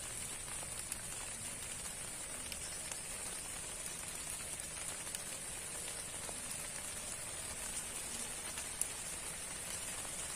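Light rain falling on swamp grass and a small pond: an even hiss with scattered tapping drops, over a steady high-pitched drone.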